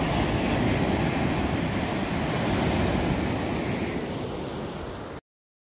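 Ocean surf and wind buffeting the microphone, a steady rushing noise that eases slightly near the end and cuts off abruptly about five seconds in.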